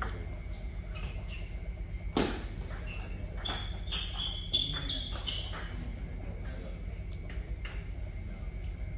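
Table tennis ball bouncing and being struck: short ringing pings about four to five seconds in, then sharp clicks of the ball on paddle and table as a rally starts near the end. A steady low hum runs underneath.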